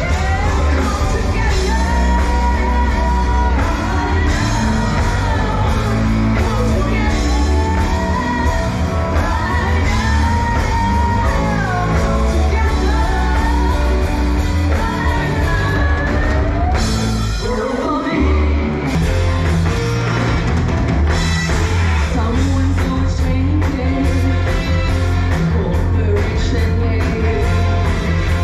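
Live rock band playing a song with a lead singer.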